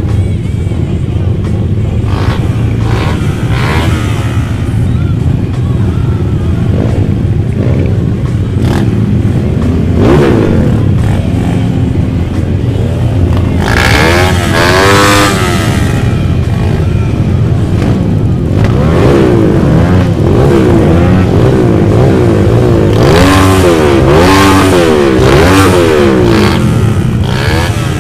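Many Honda CB motorcycles revving in a slow-moving crowd: a constant engine rumble with throttle blips that rise and fall in pitch, loudest about halfway through and again near the end.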